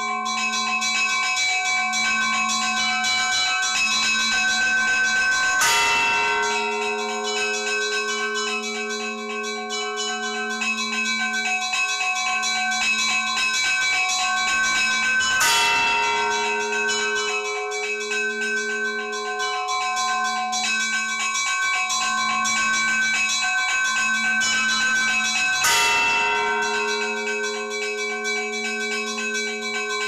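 Church bells ringing: smaller bells keep up a quick, even rhythm over one another, and a heavy bell is struck about every ten seconds, near the start, middle and end, each stroke ringing on.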